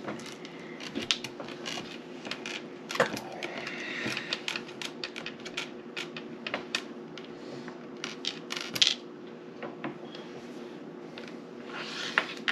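Small game pieces clicking and clattering on a tabletop, in quick, irregular taps, over a steady low background hum.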